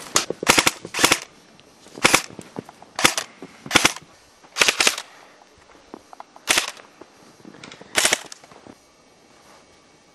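Airsoft rifles firing short bursts of rapid, sharp snapping shots, about eight bursts spaced irregularly over the first eight seconds, then quieter near the end.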